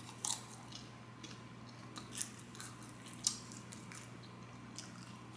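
A person chewing a mouthful of popcorn, with soft crunches at irregular intervals, the sharpest about three seconds in.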